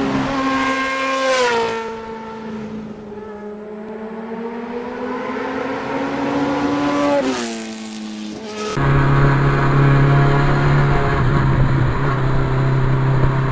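Sport motorcycle engine heard on board while riding: the revs drop about a second and a half in, then climb slowly as it accelerates, with a quick rise near the middle. About nine seconds in it switches abruptly to a different, steady engine note with a rushing noise.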